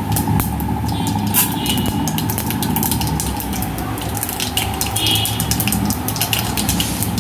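Tempering seeds sizzling in hot oil in an aluminium pressure cooker, with many irregular crackling pops as the seeds splutter.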